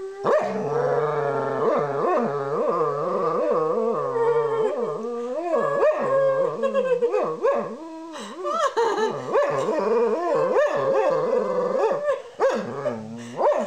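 A dog howling along in a long, wavering, tuneful "singing" howl, held almost without a break, with short pauses about two-thirds of the way through and again near the end.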